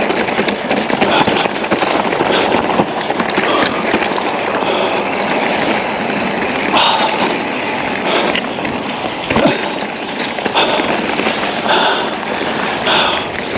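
Mountain bike rolling fast over a rough, rocky trail: a continuous rattling, crunching tyre noise with frequent sharp knocks, and a few short high squeals.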